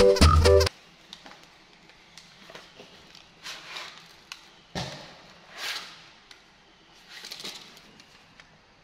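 Electronic keyboard music that cuts off under a second in, then faint rustles and one soft knock from a box of crayons being handled.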